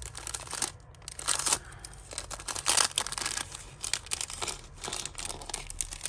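Small plastic bag being crinkled and pulled open by hand, rustling and crackling in irregular bursts, loudest about a second and a half in and again near the three-second mark.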